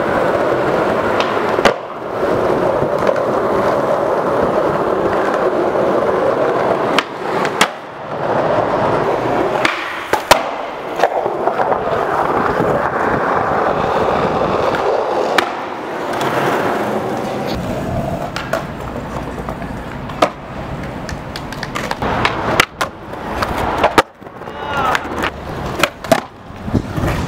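Skateboard wheels rolling on concrete and stone pavement, with sharp clacks every few seconds from the board popping, grinding or sliding on edges and landing. The rolling noise breaks off and restarts several times as one run gives way to the next.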